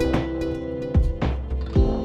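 Background music: held pitched tones over a deep, regular beat that falls twice in these two seconds.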